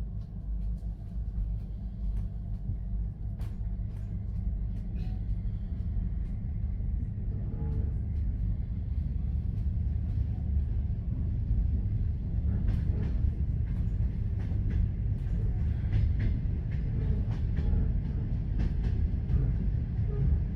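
A moving train: a steady, heavy low rumble with the clatter of the wheels on the rails heard as scattered sharp clicks.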